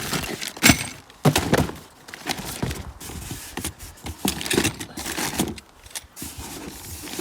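Parts and packaging being rummaged out of a cardboard box: irregular knocks and thuds, with crinkling and rustling.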